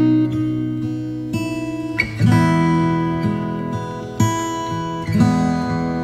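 Background music: an acoustic guitar tune, plucked and strummed, with a new chord every second or two.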